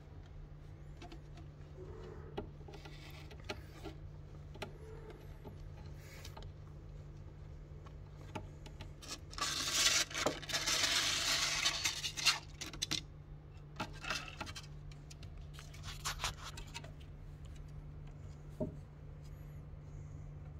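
Scraping and rubbing on the top of a wooden cat box as a hand holds a kitten down and its claws scrabble on the surface, loudest for about three seconds in the middle, with scattered small taps. A steady low hum runs underneath.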